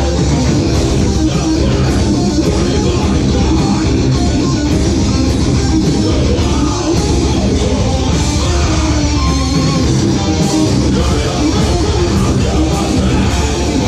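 Live heavy rock band playing loud: electric guitar, bass guitar and drum kit together.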